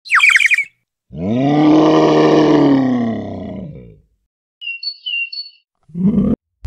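Animal sound effects in sequence: a quick burst of high falling chirps, then a long low animal call of about three seconds that rises and then falls in pitch, then two short high bird-like tweets, and a brief low call near the end.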